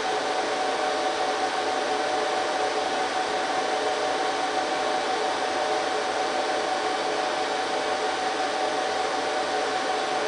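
Cooling fans of an HP ProLiant DL380 G3 rack server running steadily: an even rush of air with a few steady whining tones in it.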